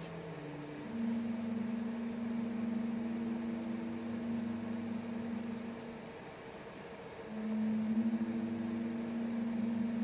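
Soundtrack of a projected film, heard through room speakers: low held notes that shift pitch every few seconds, dipping briefly around the middle, over a steady hiss.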